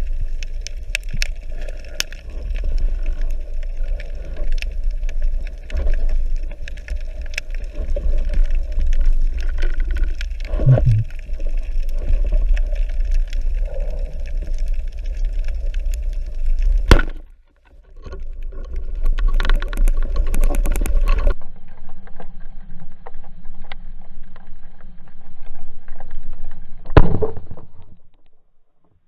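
Muffled water noise of a spearfishing dive: a steady low rumble with scattered clicks and a few sharp knocks. The sound breaks off and changes abruptly three times.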